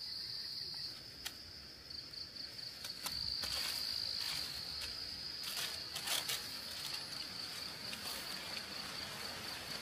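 Insects buzzing in one steady, high-pitched drone, with a few scattered rustles and clicks.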